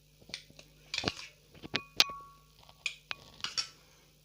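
Utensil clicking, tapping and scraping against containers while thick gel is transferred into a bottle: a handful of separate taps, the sharpest about halfway through with a brief ring.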